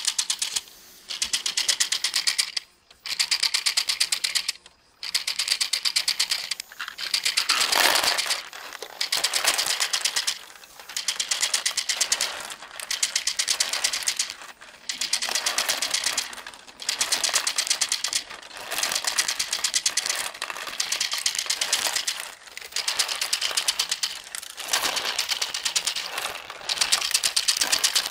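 LEGO Great Ball Contraption module running: plastic Technic gears and lift mechanism clattering in rapid clicking. The clicking comes in runs of about one to two seconds with brief breaks between them.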